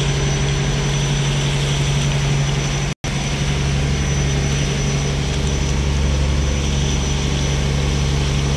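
Fishing boat's inboard engine running steadily with a low hum, over the hiss of seawater gushing from the engine-driven deck hose onto fish pieces in a plastic basket. The sound drops out for an instant about three seconds in.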